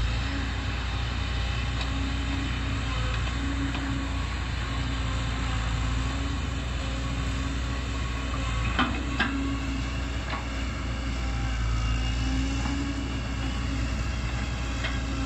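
Kobelco SK140 crawler excavator's diesel engine running under digging load. It makes a steady low drone, with an engine note that swells and eases as the arm and bucket work. Two sharp clanks come about nine seconds in.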